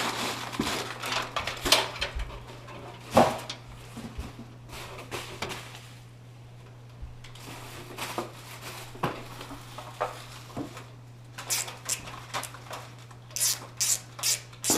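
Computer parts and packaging being handled: scattered clicks and knocks with short bursts of rustling, over a steady low hum.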